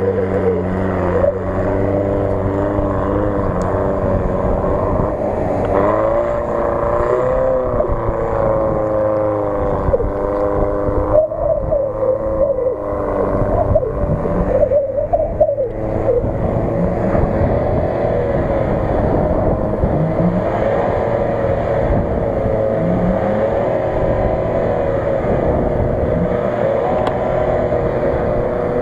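Off-road 4x4 engines revving under load as they push through flooded mud, the pitch rising and falling with the throttle, most busily in the middle.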